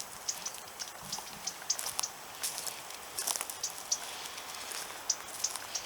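Dry grass and twigs crackling and snapping as they are trampled: a dense, irregular scatter of sharp little clicks.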